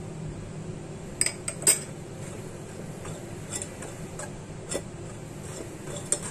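A metal spoon working flour through a stainless steel mesh sieve, with scattered sharp clinks of spoon against the sieve, the loudest about one and a half seconds in.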